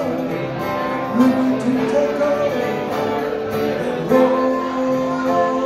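Live acoustic bluegrass band playing an instrumental passage: bowed fiddle notes sliding between pitches over picked banjo and strummed acoustic guitars, heard through the PA speakers.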